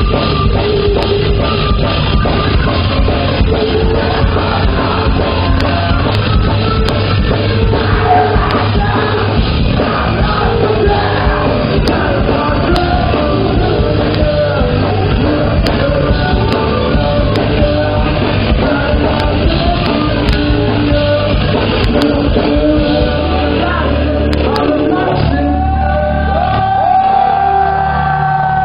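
Live rock band playing loud: distorted electric guitars, bass and drums under shouted, sung vocals, in a hall. Near the end the playing thins to held, ringing chords.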